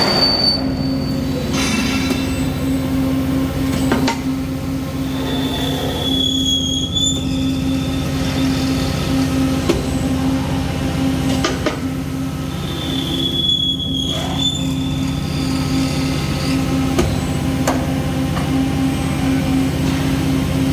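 Peddinghaus PCD-1100/3C CNC beam drill line running with a steady machine hum, and a short high-pitched squeal twice, about 6 and 13 seconds in, among light clicks.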